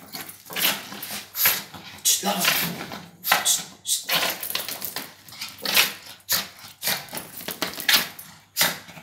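A Lhasa Apso dog making short, angry growling barks at a gate, about one a second.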